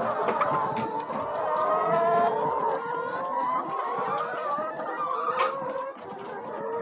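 A large flock of brown laying hens clucking and calling together, many drawn-out calls overlapping at once, with a few light clicks.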